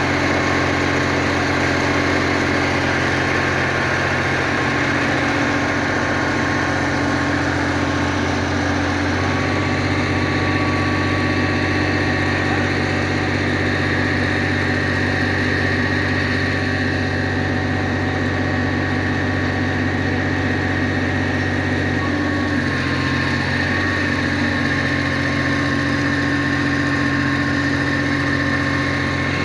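An engine running steadily, its hum shifting slightly a few times.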